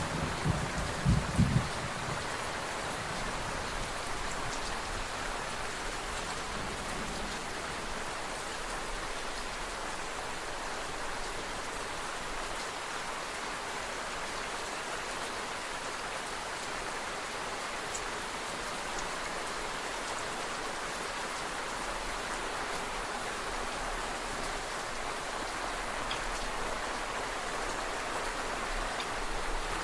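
Steady rain falling, an even hiss with scattered drop ticks. The last rumble of thunder dies away in the first second or two.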